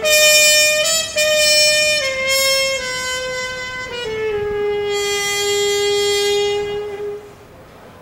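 Solo trumpet playing a slow melody: a few sustained notes stepping down, then a long held low note lasting about three seconds before it fades near the end.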